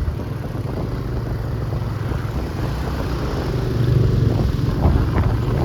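A motor vehicle's engine running with a steady low rumble that grows louder toward the end.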